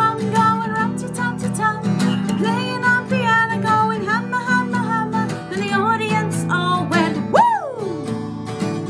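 Acoustic guitar strummed steadily under a woman's singing voice. Near the end her voice sweeps up and falls back in one loud "woo!"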